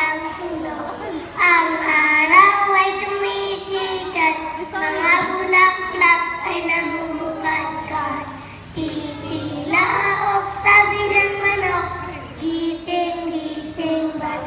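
Young girls singing a nursery rhyme together, in phrases with short breaths between them.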